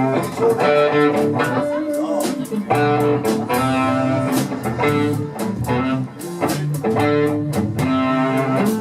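A band playing live, with electric guitar to the fore over bass and drums keeping a steady beat.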